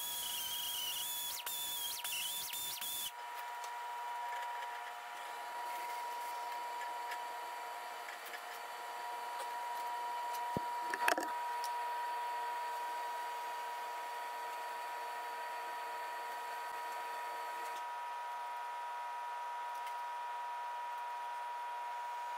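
Air-powered die grinder with an abrasive disc running with a high, slightly wavering whine as it cleans up the axle bore, cutting off about three seconds in. After that a steady hum, with a single sharp knock near the middle.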